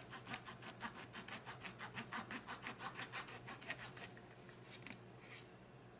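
Rapid back-and-forth rasping strokes, about six a second, of a utensil sawing at food. They stop about three-quarters of the way through, with one more stroke near the end.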